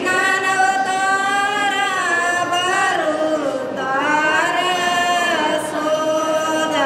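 Music: a voice singing a slow melody in long held notes that slide from one pitch to the next.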